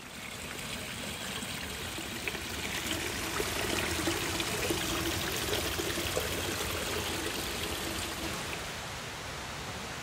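A mountain stream rushing. It grows louder over the first few seconds and eases off a little near the end.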